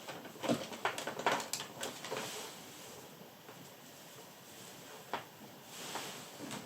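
Light clicks and soft rustling of cables being handled and plugged into a small PC. There are several quick clicks in the first two seconds, then a brief rustle and one more click near the end.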